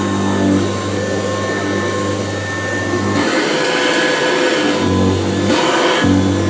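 Kirby Classic 3 upright vacuum cleaner running steadily with a motor whine. A lower hum in its sound cuts out about three seconds in and comes back twice briefly.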